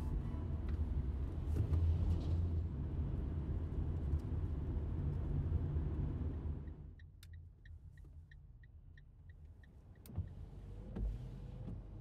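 A car driving, heard from inside the cabin: a steady low road-and-engine rumble that fades away about six and a half seconds in. After it comes a run of light, evenly spaced high ticks, about three a second, and then a single sharp knock about ten seconds in.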